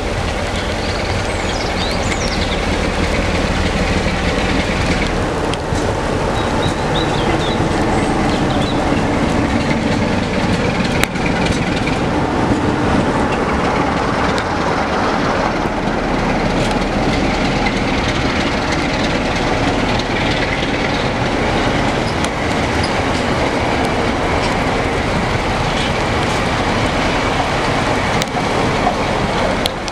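Class 47 diesel locomotive, with its Sulzer twin-bank diesel engine running, approaches and passes close by at the head of a train. Behind it, wagons and a new Class 197 diesel multiple unit towed without power roll past, their wheels clattering on the rails.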